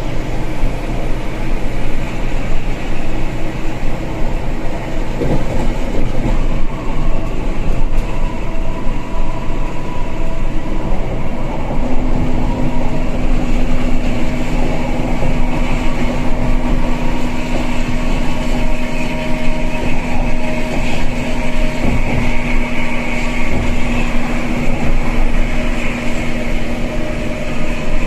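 Steady cabin drone of a luxury coach bus cruising at highway speed: engine hum mixed with tyre and road rumble. A steady engine tone joins the drone about twelve seconds in.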